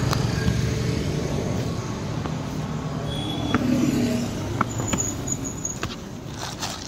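A motor vehicle engine running close by, a steady low hum with road traffic noise, growing fainter toward the end, with a few light clicks.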